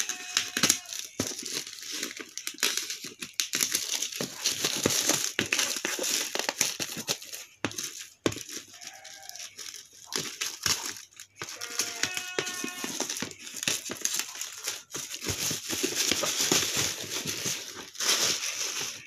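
A plastic courier mailer bag being snipped with scissors and torn open, with irregular crinkling and crackling of the plastic wrap as it is pulled off a cardboard shoebox.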